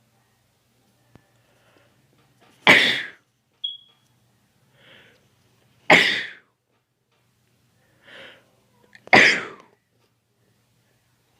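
A man sneezing three times, about three seconds apart, each loud sneeze preceded by a short in-breath; the sneezes are set off by dust.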